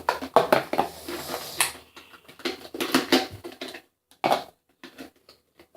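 Knocks, taps and clatters of small objects being picked up and set down, in irregular clusters that thin out to a near-silent stretch about four seconds in, broken by a few single clicks.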